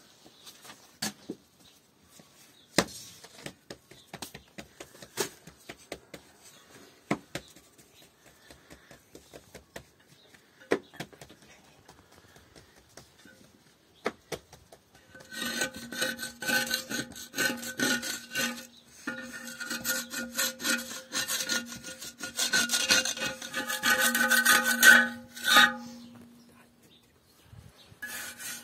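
Scattered light knocks and clicks, then about ten seconds of dense, rapid scraping strokes with a ringing tone in them, which stop suddenly near the end.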